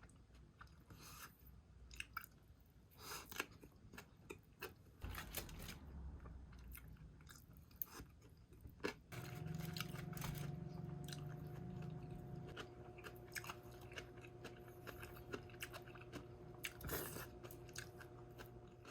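A person chewing and biting food close to the microphone, with crunchy bites and soft mouth sounds. About halfway through a steady low hum starts and carries on under the chewing.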